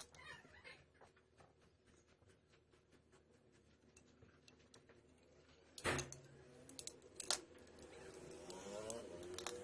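Small hard parts clicking and ticking, with a sharp metallic clatter about six seconds in and two more clicks soon after, then a faint whine that wavers up and down in pitch near the end.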